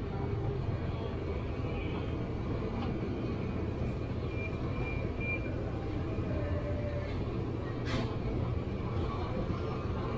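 Steady low hum and rumble of grocery-store ambience, from the open refrigerated display cases and ventilation, with a single sharp click about eight seconds in.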